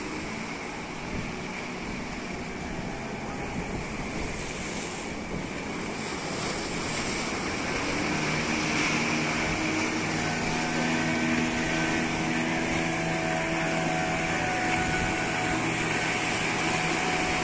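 Surf and wind on the microphone, joined about halfway through by a small fishing boat's engine running steadily.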